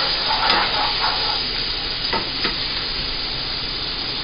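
Sliced onions and chopped garlic sizzling steadily as they sauté in a hot pan, being stirred and tossed, with a few faint clicks along the way.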